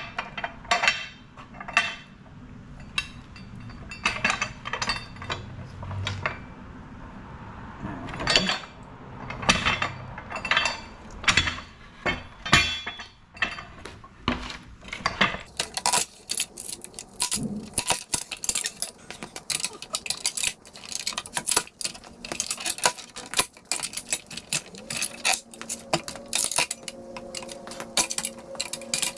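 Steel pallet-buster bar clanking and knocking against a wooden pallet as its forks pry up the deck boards. The knocks are irregular at first, then turn quicker and denser about halfway through.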